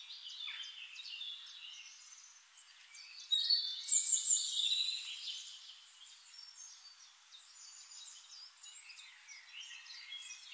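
Birds chirping and trilling in high, thin phrases, with a louder burst of song about three seconds in that lasts a couple of seconds.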